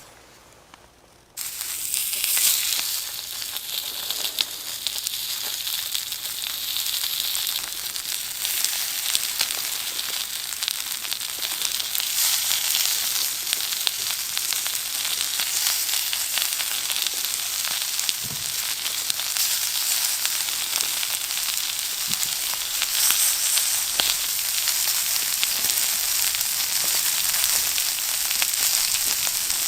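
Beef short ribs sizzling steadily over the fire: a dense hiss of fine crackles with the odd sharper pop, starting suddenly about a second and a half in.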